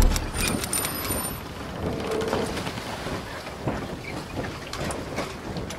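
Sound effect of a channel logo intro: a low boom right at the start, then a steady rain-like hiss with scattered clicks and faint high tinkling for about a second.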